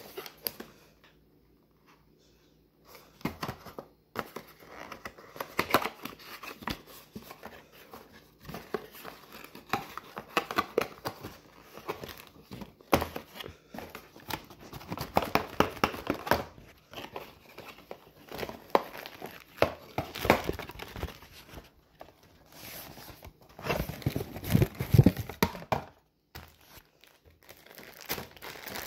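A cardboard retail box being handled and clear plastic packaging crinkling as the compression shorts and protective cup are pulled out. It is irregular rustling and crackling that starts about three seconds in, with a louder stretch and a few low thumps near the end.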